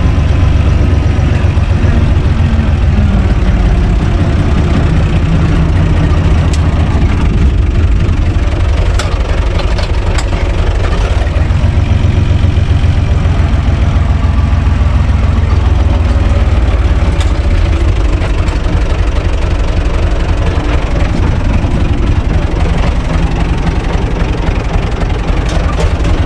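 UTB Universal 445 tractor's four-cylinder diesel engine running steadily, heard from inside its cab as a loud low chug with a few light clicks and rattles.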